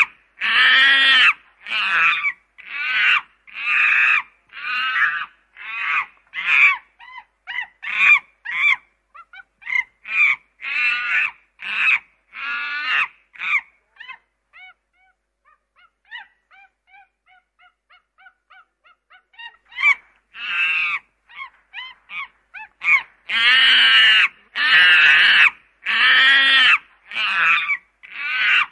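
Waterfowl honking, loud and repeated about once a second. For a few seconds past the middle only faint short calls are heard, then the loud honking comes back.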